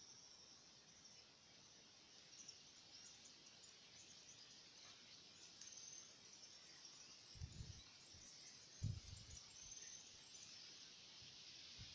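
Faint countryside ambience in open fields: thin high-pitched chirping throughout. A few soft low thumps come in the second half.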